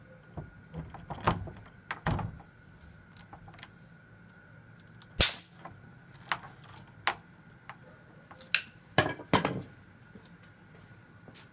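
Scattered sharp metallic clicks and knocks as a steel cable seal and its lock body are handled at a metal door hasp, with a cutting tool knocking against them. The loudest is a single sharp click about five seconds in, with a short cluster near the end. A faint steady high tone runs underneath.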